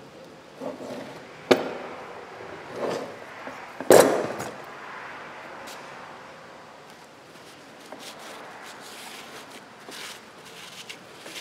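Heavy steel steering-clutch parts clanking onto a steel shop cart: a sharp clank about one and a half seconds in and a louder, ringing one at about four seconds, with a few lighter clicks. Faint rag rustling follows as a hub is wiped.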